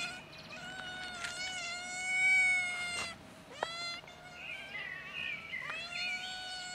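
Stray cats, a black kitten among them, meowing insistently for food: one long drawn-out meow lasting about three seconds, a short call, then further meows overlapping near the end.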